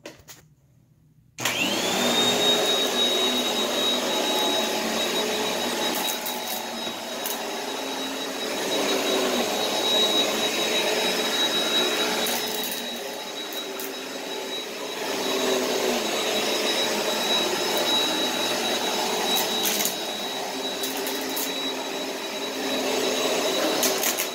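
Upright vacuum cleaner switching on about a second and a half in, its motor whine rising and then holding a steady high tone as it is pushed back and forth over carpet, the level swelling and dipping with the strokes. A few brief crackles of grit being sucked up.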